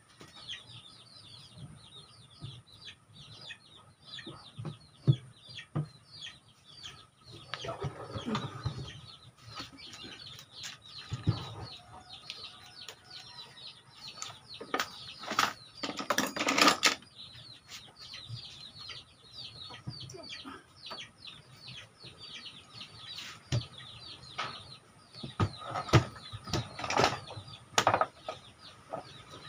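Chickens clucking and chirping all through, with several knocks and rustles over them. The loudest rustle comes about halfway through, and more follow near the end.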